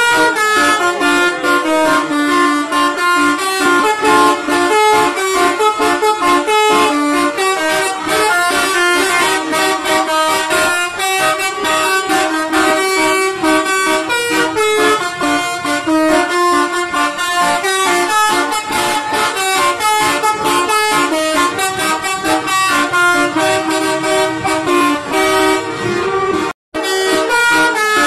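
A bus's telolet horn played as a tune from a small piano-style keypad on the dashboard. Loud horn notes change pitch every fraction of a second in a quick melody, with a brief break near the end.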